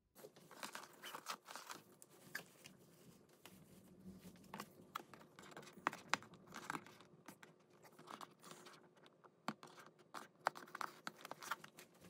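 Hands untying a satin ribbon and handling a paperboard gift box: rustling, rubbing and scraping of fingers on ribbon and cardboard, with many small taps and knocks.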